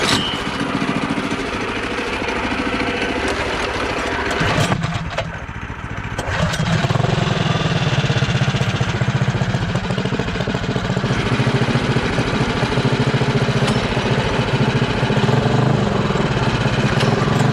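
Small single-cylinder gasoline engines of a four-engine go-kart running close by, one engine per wheel. They get louder and heavier about six and a half seconds in.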